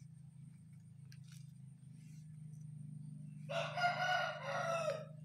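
A single loud animal call with many overtones, about a second and a half long, starting about three and a half seconds in, over a steady low hum.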